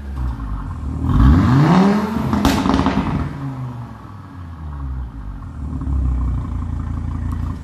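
Audi TT RS 8J's turbocharged five-cylinder engine, with a modified exhaust, blipped once about a second in: the revs climb and fall back, with a sharp crack from the exhaust as they drop. It then settles to idle, with a smaller rise in revs near the end.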